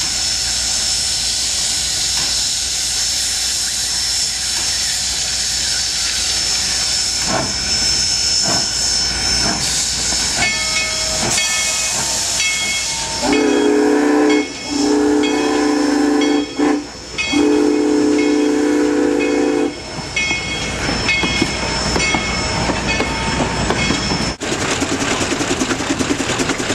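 Steam engine venting a steady hiss of steam, then its steam whistle blowing three blasts, each a chord of several tones, the last two longer than the first. Near the end the sound cuts to a rapid, even mechanical beat.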